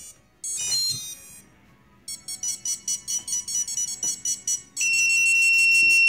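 Quadcopter ESCs beeping through their brushless motors: a short cluster of beep tones, then rapid even beeping at about five beeps a second, then one long steady high beep near the end. The rapid constant beeping comes from motors 1 and 4, which won't arm or spin despite repeated ESC calibration.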